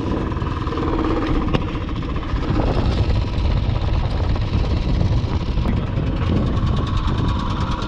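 Royal Enfield Classic 350's single-cylinder engine idling steadily, with water in it from a river crossing.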